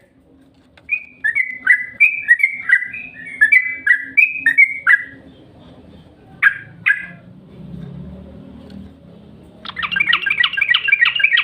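Yellow-vented bulbul (cucak trucuk) singing: a bubbly phrase of quick whistled notes, two lone notes, then a fast busy chatter near the end.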